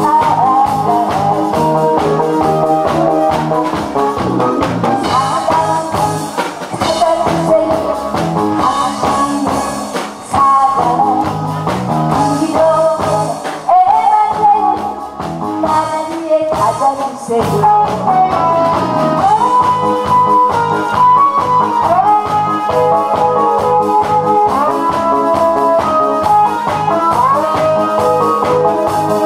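A woman singing into a microphone over instrumental accompaniment.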